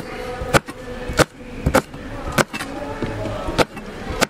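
Chef's knife slicing green chillies on a plastic cutting board: a sharp knock of the blade on the board with each cut, about six cuts at a steady pace.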